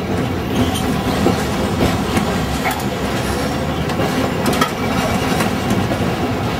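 Old-style Dalian tram running along its track: a steady rumble with rattling and irregular sharp clacks and knocks.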